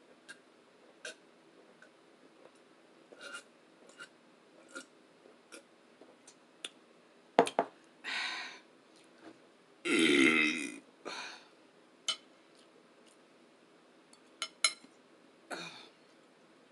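Close-up eating sounds: scattered small clicks and smacks of chewing and eating, with a sharp knock a little past seven seconds. A loud burp comes about ten seconds in.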